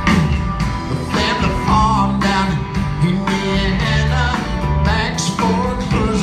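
Country band playing a song with a sung lead vocal over guitar, bass and drums.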